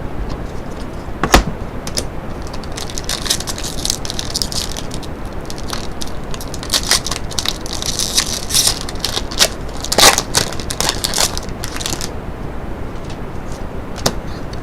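Foil trading-card pack wrapper crinkling and crackling as it is handled and opened, with a sharp snap about a second in and another near ten seconds.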